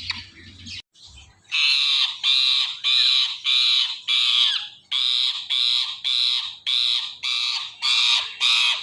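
Ringneck parrot giving a long series of harsh, screeching squawks, about two a second, starting about a second and a half in.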